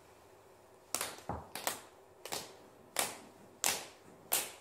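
Hand claps keeping a steady beat about every two-thirds of a second, with a couple of extra, lower thuds between the first beats, each echoing briefly: a body-percussion count-in setting the tempo for an a cappella sea shanty.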